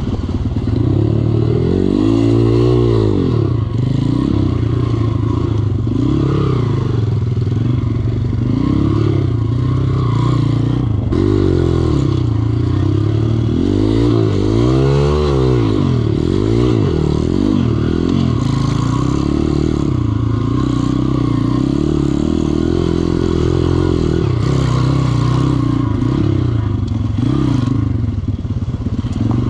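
Dirt bike engine running under load off-road, its revs rising and falling as it is ridden, with two marked swings of the throttle.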